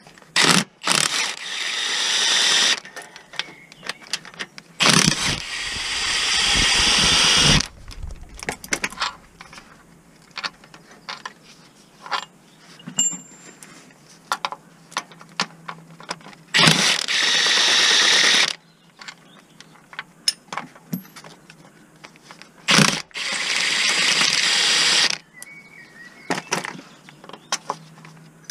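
Ratchet wrench turning a bolt on a van's gearbox casing: four runs of fast ratchet clicking, each two to three seconds long, with scattered clicks and knocks of the tool and socket between them.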